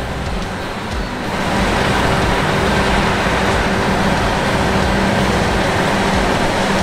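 Claas Lexion 795 TerraTrack combine harvester running steadily with a continuous machine hum, growing louder about a second in.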